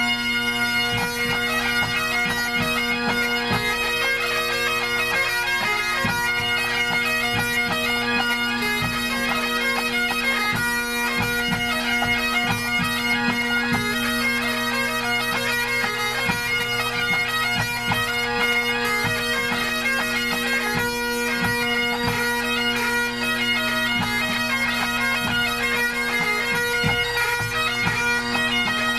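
Pipe band warming up: several Great Highland bagpipes play a tune together over their steady drones, with drum strokes underneath.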